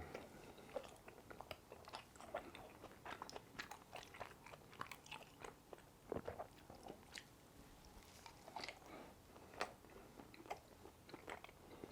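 Faint close-miked chewing, with soft crunchy bites and wet mouth clicks at an uneven pace, from someone eating crispy-bottomed pan-fried pork dumplings.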